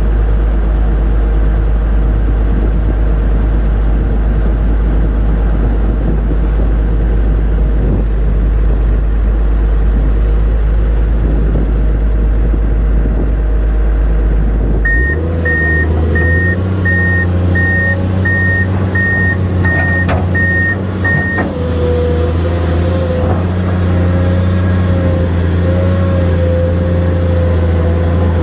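Komatsu PC210 excavator's diesel engine running steadily. About halfway through, the engine note changes abruptly and rises, and a vehicle's reversing alarm beeps about ten times, roughly one and a half beeps a second, for some six seconds.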